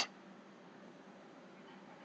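Near silence: faint room tone with a low, even hiss.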